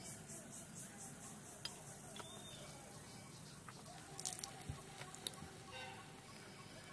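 Faint sizzle of a small filled pastry deep-frying in oil in a miniature steel pan, with a few light clicks and taps, most of them about four seconds in.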